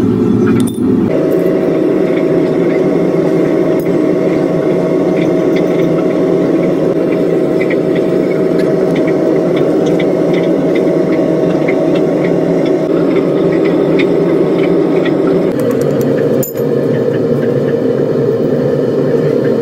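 A loud, steady low hum runs throughout, with faint irregular ticks and scrapes on top.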